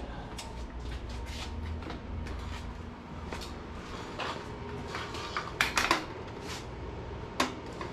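Handling noise from a hand-held camera being carried around: scattered light knocks and clicks over a steady low hum, with a brief louder clatter about six seconds in.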